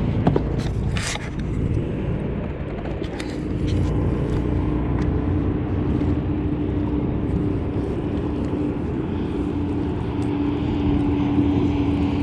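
An engine drones steadily at an even pitch, with a few sharp clicks in the first second or so.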